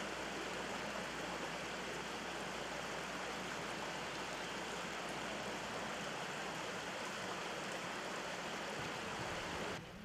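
A gorge stream flowing: a steady, even rush of water that cuts off suddenly near the end.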